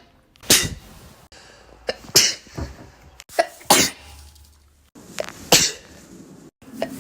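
A person sneezing repeatedly: four sharp sneezes, about one and a half seconds apart.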